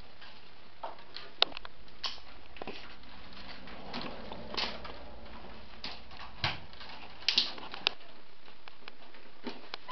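Willow rods being woven by hand into a wicker basket: irregular sharp clicks and brief rustles as the rods rub, creak and snap against the upright stakes.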